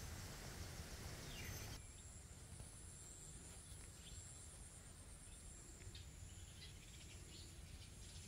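Near silence: faint evening garden ambience, a steady high insect trill with a few faint bird chirps.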